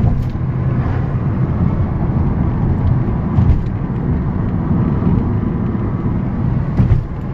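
A car driving at road speed, heard from inside the cabin: a steady low rumble of tyre and wind noise, with a couple of brief louder bumps, one about halfway through and one near the end.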